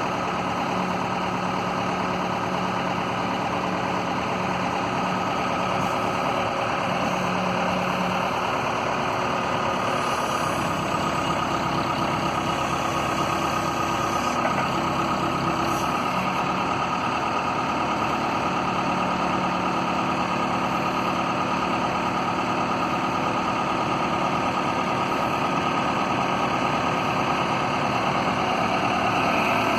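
1998 Case 580L Series 2 loader backhoe's four-cylinder diesel engine running steadily near idle, a little louder near the end.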